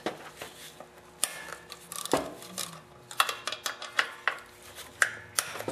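Hand ratchet and socket clicking and clinking on metal while loosening the connecting-rod cap bolts of a small engine, with scattered sharp clicks and a run of quick ratchet clicks a little over three seconds in.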